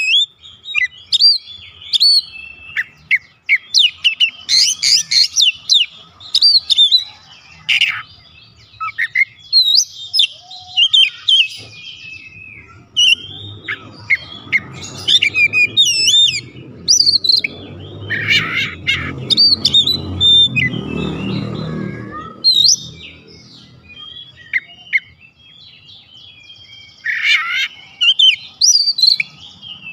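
Male Oriental magpie-robin singing a loud, varied song of quick whistles, chirps and trills, full of mimicked phrases. A low rumble sits under the song through the middle stretch.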